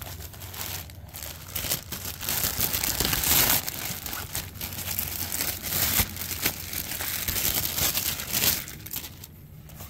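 Clear plastic packaging bag crinkling and crackling as it is handled and pulled off a packaged nylon gear pouch. The crinkling dies down about a second before the end.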